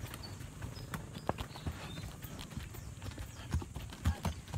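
A horse walking on a dry dirt trail, its hooves clopping at an uneven pace.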